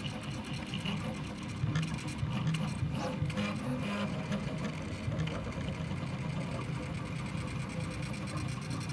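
Prusa i3 MK3S 3D printer mid-print: its stepper motors whirr in constantly shifting tones as the print head moves back and forth, over a steady high hum.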